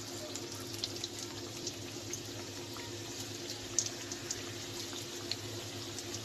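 Stuffed dough pastries frying in moderately hot oil: a steady sizzle with many small scattered pops and crackles, over a steady low hum.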